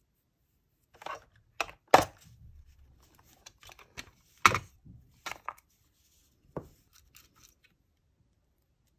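Clear plastic nail tips and their hard plastic compartment case being handled as tips are picked out: a scatter of sharp plastic clicks and taps, two of them louder, spread over several seconds.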